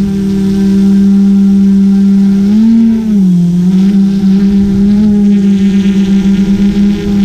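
GoPro Karma quadcopter's motors and propellers humming steadily as it hovers. The pitch rises briefly about two and a half seconds in, then dips and settles back.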